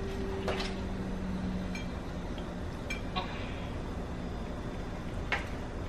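Metal kitchen tongs clicking and clinking a few times as chicken pieces are picked off a foil-lined tray onto a plate. A low steady hum underneath stops about two seconds in.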